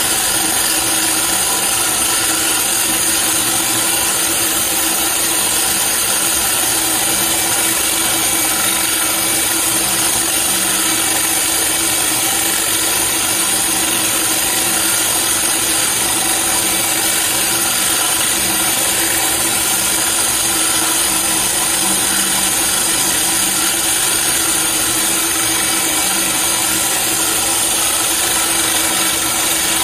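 Handheld electric core drill running steadily under load, its diamond core bit dry-grinding into granite, with compressed air from a blow gun hissing at the cut. The grinding noise holds even and unbroken.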